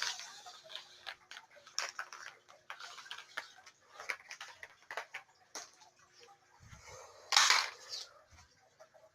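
Extension cord and plug being handled: scattered light clicks and taps, with one louder rustling burst a little after seven seconds in. A faint steady hum sits underneath.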